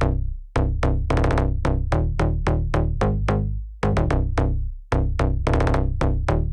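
Electronic background music with a drum-machine beat and a heavy bass, dropping out briefly twice near the middle.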